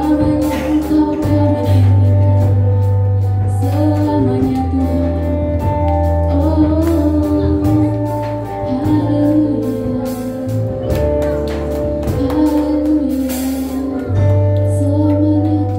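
Worship song with female singing over a band: held bass notes that change every couple of seconds, guitar, and scattered drum and cymbal hits.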